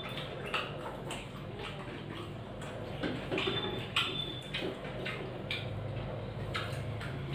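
Scattered light clicks and clinks of stainless steel plates and bowls as rice is eaten by hand, a few of the clinks ringing briefly, about half a second in and again near the middle. A low steady hum runs underneath.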